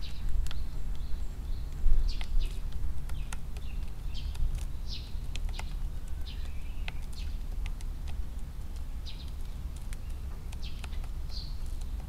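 Eurasian tree sparrows giving short chirps every second or so, with scattered sharp ticks as they peck at grain in a tray, over a steady low rumble.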